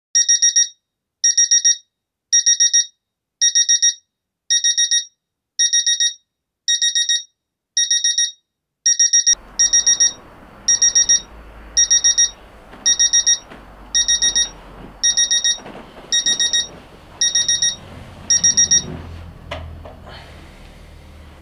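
Bedside electronic alarm clock beeping in quick high-pitched bursts of about four beeps, one burst roughly every second, until it is switched off near the end with a short knock.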